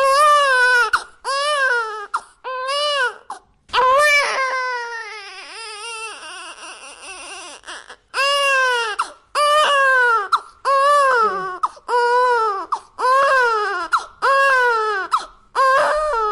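Baby crying in a string of short wails, each rising then falling in pitch, about one a second. Around four seconds in, one longer wail trails off slowly over several seconds before the short wails start again.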